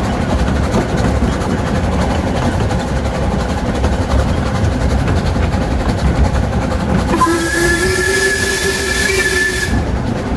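Miniature steam locomotive running, with a steady low rumble of the train on the track. About seven seconds in, its steam whistle sounds for about two and a half seconds: a steady blast of a couple of pitches over a hiss of steam. It then cuts off.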